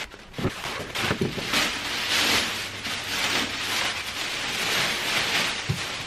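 Plastic bag rustling and crinkling steadily as a drum is pulled out of it, with a few dull knocks near the start and one near the end.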